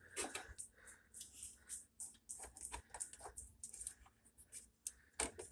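Faint, irregular light clicks and rustling of handling noise.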